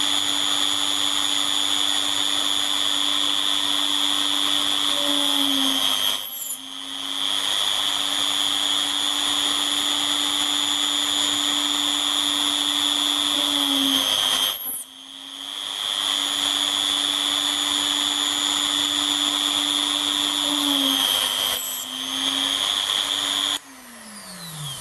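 Hilda rotary tool running at speed with a steady high whine, its pitch and level sagging briefly three times as the stub drill is fed into the brass end plate to spot holes. Near the end it is switched off and whines down.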